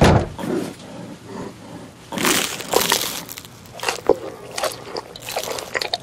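Close-miked crunching and crackling of food being bitten and chewed, in rough bursts about two seconds in, briefly near four seconds, and again near the end. A sudden thump opens it.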